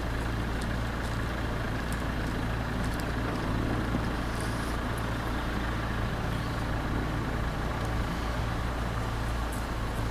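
Steady low hum of a vehicle engine idling, with a few faint ticks over it.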